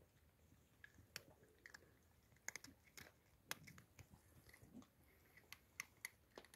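A cat eating from a bowl, chewing with faint, irregular crunches and clicks.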